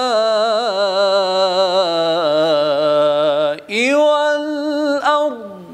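A man's voice in melodic Quran recitation (tajweed), holding one long ornamented note with a wavering pitch that slowly falls, then, after a short breath, a second held phrase, "wa-l-arḍ", that ends near the close.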